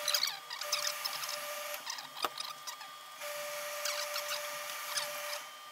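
Hose-fed steam iron pressing a wool trouser seam: short hissing puffs of steam and the iron sliding over the cloth, with an on-and-off steady hum and one sharp click about two seconds in.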